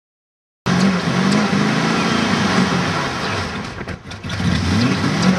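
Chevrolet Monte Carlo SS engine with a Holley 600 carburetor, running fast. It cuts in suddenly under a second in, and its revs sag around three seconds in, then climb back. The revs stay high because the carburetor sticks wide open even with the throttle lever at rest.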